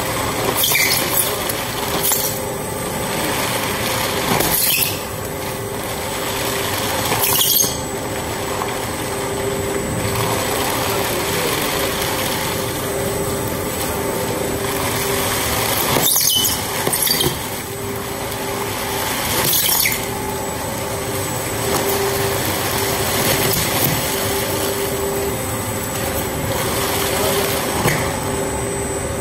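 Industrial LDPE film shredder running steadily, its toothed cutter rotors gripping and tearing plastic film sacks. A steady machine hum carries on underneath, with short sharp squeals and tearing bursts every few seconds as the film is pulled in and ripped.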